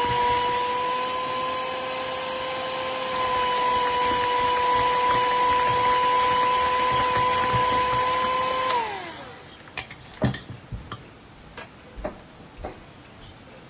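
Electric hand mixer running steadily, beating eggs into creamed butter and sugar in a metal bowl. About nine seconds in it is switched off, and its pitch falls as the motor winds down. A few light knocks follow.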